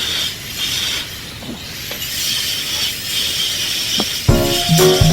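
A steady hissing noise that swells and fades irregularly, then background music comes in about four seconds in.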